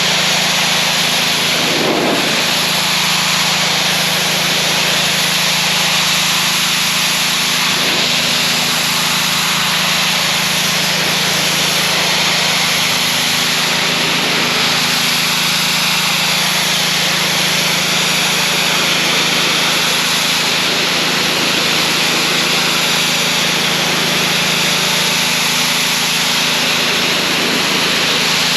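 Gas-engine pressure washer running steadily, with the loud, even hiss of its high-pressure spray blasting dirt, algae and ivy off a retaining wall.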